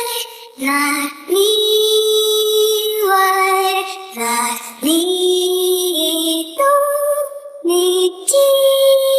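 Sped-up isolated female lead vocal, pitched higher than normal so it sounds childlike, singing a string of long held notes with short breaths between them and no accompaniment.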